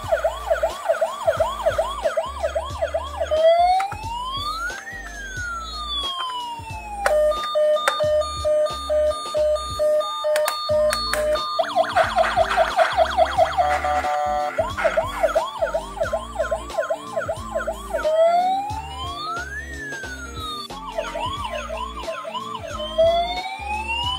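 Electronic siren from a toy ambulance's sound module, cycling through its patterns: a fast warbling yelp, a slow wail that rises and falls, and a two-tone hi-lo, then back to the yelp.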